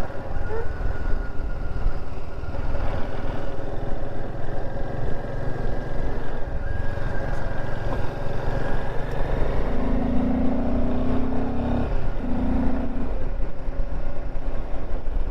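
Royal Enfield Himalayan 450 motorcycle running on the move, its engine and wind rush as a steady rumble. A low steady tone sounds twice, about ten and twelve seconds in.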